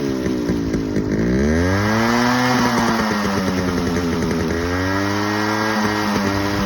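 Yamaha RX100 two-stroke single-cylinder engine being revved: the pitch drops about a second in, then climbs and holds high, and rises again past the middle.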